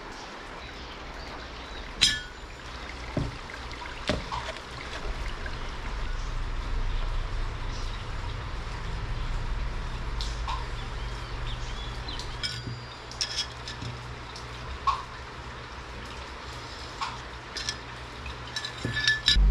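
Scattered clinks and taps of steel pieces being picked up and set down on a steel workbench, over a steady low hum.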